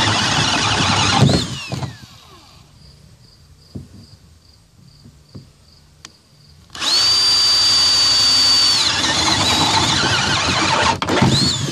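Power drill with a 1-inch bit boring holes through a plastic kayak deck, the motor whining steadily under load. It winds down about a second in, stops for several seconds, then drills again for about four seconds and winds down near the end.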